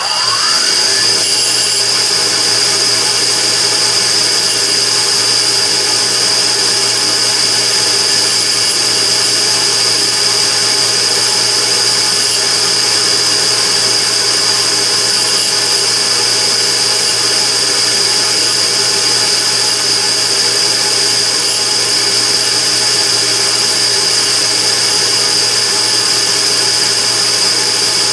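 Immersion tube burner running loud and steady, with a strong high-pitched whine over its steady noise and a tone rising over the first second as it comes up to speed. This is the burner's abnormal noise.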